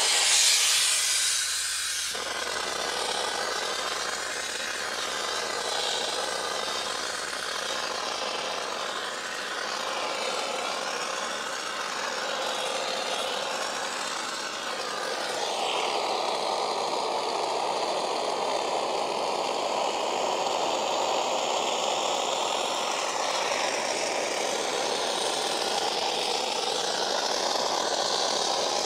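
Kärcher SC 4 EasyFix steam cleaner hissing steadily as steam jets from its cloth-padded hand nozzle, which is worked over a fabric car door panel. The hiss is sharpest in the first two seconds, and from about fifteen seconds in it turns fuller and lower.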